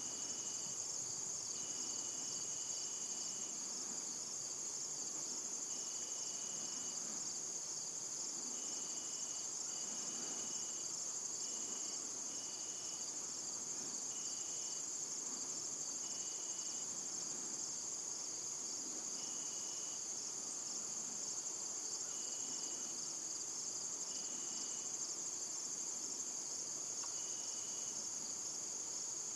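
Steady high-pitched chorus of crickets and other field insects, with short, slightly lower trills breaking in every few seconds.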